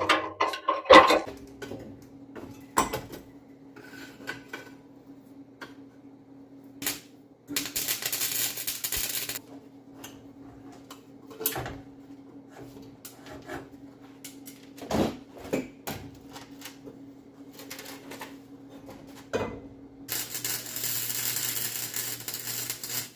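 Metal exhaust pipe parts being handled, with scattered clanks and knocks over a steady hum. Two stretches of hiss, about two seconds long in the middle and about three seconds near the end, are the loudest parts.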